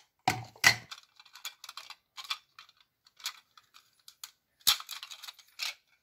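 Plastic-rimmed stainless-steel grater cones of a Moulinex vegetable grater clicking and clattering as they are handled, nested together and pulled apart. The sharpest knocks come about half a second in and again just before five seconds, with lighter clicks in between.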